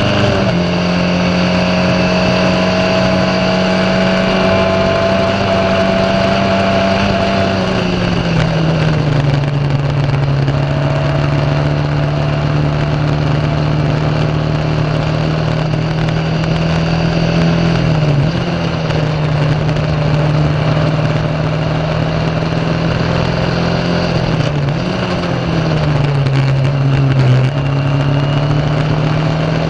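Onboard sound of a Formula Ford 1600's Ford Kent 1.6-litre four-cylinder engine running hard at racing revs. Its pitch holds high, falls to a lower steady pitch about eight seconds in, dips briefly twice at about 18 and 25 seconds, and climbs again near the end.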